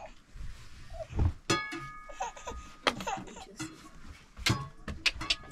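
A baby laughing in short bursts, with a few sharp knocks.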